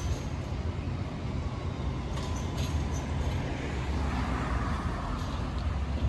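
Alstom Citadis light rail tram running along the street amid traffic: a steady low rumble with a faint whine early on fading out, a few light clicks, and a swell of running noise around four seconds in.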